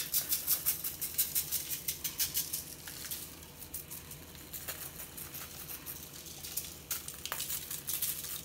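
Fish seasoning shaken from a shaker bottle over raw tilapia fillets on a foil-lined tray: quick dry rattling shakes, about four a second for the first few seconds, then sparser, with another run near the end. A faint steady sizzle of oil heating in a cast iron skillet runs underneath.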